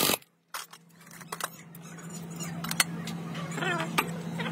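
A power impact wrench on a truck differential's pinion flange nut cuts off suddenly. After a moment of quiet come a few light metallic clicks and clinks as the tool and socket come off the flange, over a steady low hum that grows louder.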